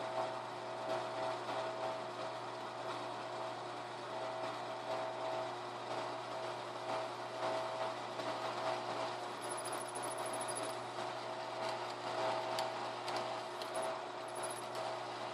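Electric motor running steadily with an even hum, unchanged throughout.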